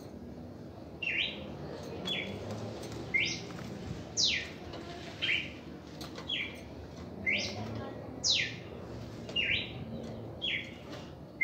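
Caged red-crested cardinal singing: a repeated phrase of clear whistled notes, short rising notes alternating with longer falling sweeps, about one note a second. The song starts about a second in.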